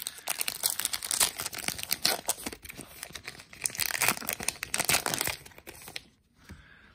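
Foil wrapper of a trading-card pack crinkling and tearing as it is ripped open by hand, a dense crackle of many quick rustles that dies down after about five and a half seconds.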